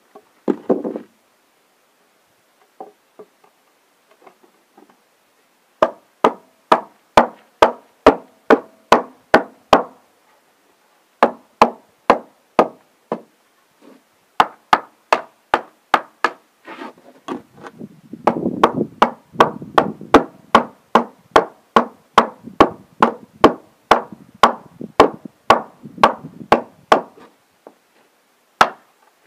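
Hammer tapping on a wooden form board at the edge of freshly poured concrete: sharp knocks, about two to three a second, in several runs with short pauses.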